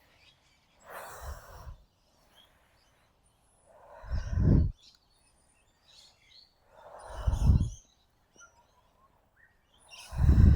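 A woman's deep, forceful breaths during breath work, one about every three seconds, the louder ones rumbling as the air hits the microphone. Faint bird chirps between the breaths.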